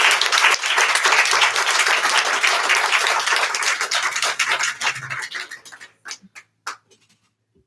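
Applause from a small audience, many hands clapping together, thinning out about five seconds in to a few last single claps before stopping.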